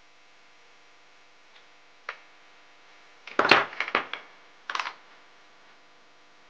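Hard plastic parts being handled: one click about two seconds in, a burst of clattering knocks a little after the middle (the loudest), and a shorter clatter soon after, over a faint steady hum.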